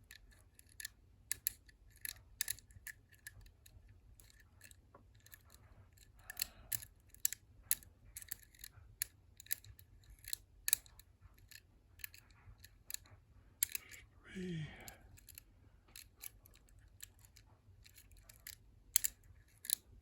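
Irregular small metal clicks and taps as a lock pick and a thin wire work the levers of a Defiant Squire lever lock, lifting them. A short murmur from a person about two-thirds of the way through.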